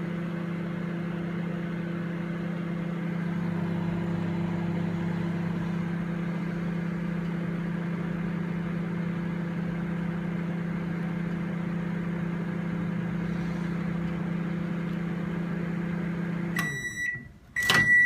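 Goodmans CB23S-U microwave oven running with a steady hum while it heats a mug of water, working normally after its rotary dial contacts were cleaned. Near the end the hum stops, the oven beeps to end the cycle, and there is a sharp click as the door is opened.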